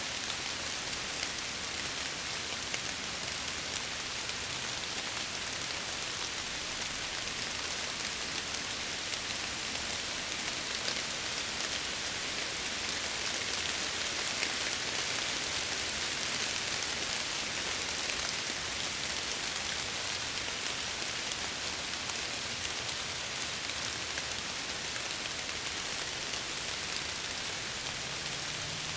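Steady rain pattering against window glass, a dense even hiss with faint individual drop ticks.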